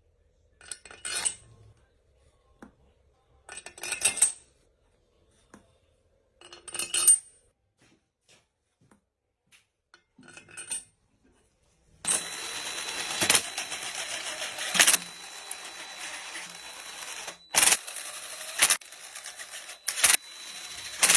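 Metal tools and engine parts clinking and clattering in a few short handling bursts, with quiet between. About twelve seconds in, a steady hiss starts and runs on with a few sharp knocks.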